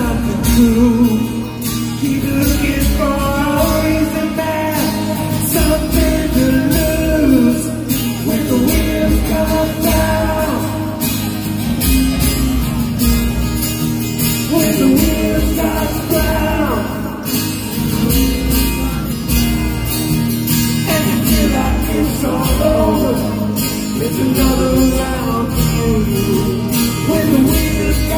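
Live rock band playing loud, the lead vocalist singing over strummed acoustic guitar and the rest of the band, recorded from the crowd on a phone.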